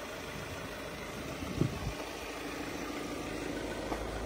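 Audi Q3's engine idling steadily, with one short thump about a second and a half in.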